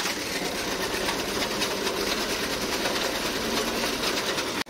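Massey Ferguson tractor's diesel engine running under load while its front-mounted reaper's reciprocating cutter bar chatters, cutting standing wheat. The sound is a steady, rapid, even clatter.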